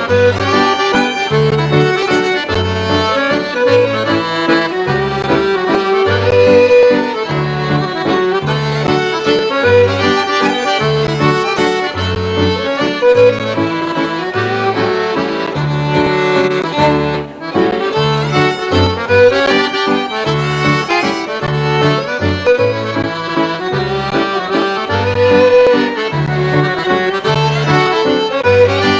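Scottish traditional waltz played live, led by piano accordion with fiddle, guitar and bass accompanying, with a steady alternating bass line under the tune.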